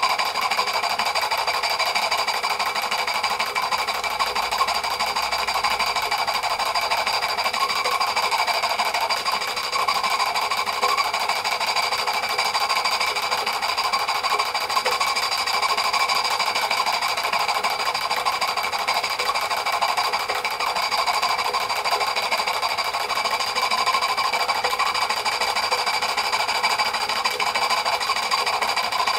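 Märklin 16051 twin-cylinder compound horizontal stationary model steam engine running steadily on live steam, a fast, even mechanical clatter over a steady hiss.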